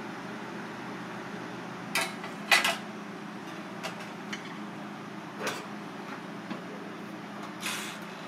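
A few sharp metal clanks as a small cast-iron skillet is handled and set onto the wire rack of a toaster oven, the loudest about two and a half seconds in, followed by the oven door closing. A steady low hum runs underneath.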